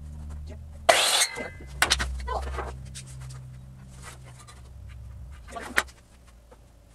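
Short rustling and clicking bursts of handling at a workbench, the loudest lasting under half a second about a second in, over a steady low hum that stops near the end. The miter saw is not cutting.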